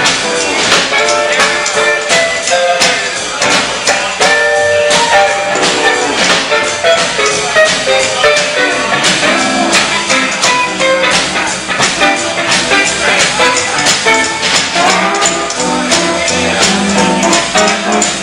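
Country boogie band playing an instrumental break with no singing: electric and steel guitars over upright bass and drums, keeping a steady driving beat.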